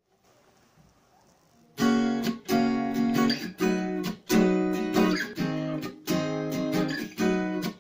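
Acoustic guitar strummed in repeated chords, starting about two seconds in after near silence.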